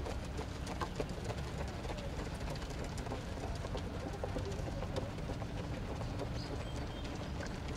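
Steady low rumble with scattered light taps: runners' footfalls on a synthetic track.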